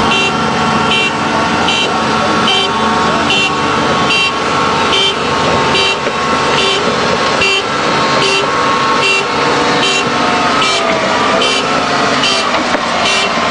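Crawler pipelaying sideboom running on its diesel engine, with a warning alarm beeping steadily, about one short beep every 0.8 seconds.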